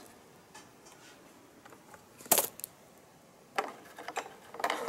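Hard plastic clicks from the capsule holder of a Nescafé Dolce Gusto coffee machine as it is handled and the used capsule is taken out: one sharp click a little over two seconds in, then a quick run of clicks and knocks near the end.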